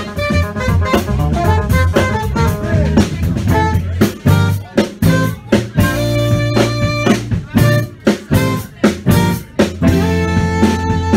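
A funk band playing live: guitar over bass and drum kit, in a steady groove with regular drum hits.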